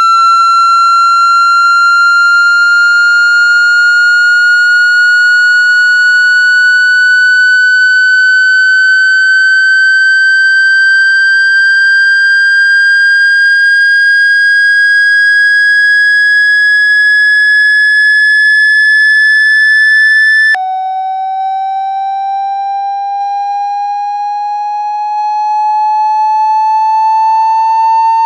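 Synthetic speaker-cleaning tone of the kind played to vibrate water out of an iPhone's speaker grille: a loud, high electronic tone with overtones, sliding slowly and steadily upward in pitch. About twenty seconds in it drops abruptly to a much lower pitch, a little quieter, and begins climbing slowly again.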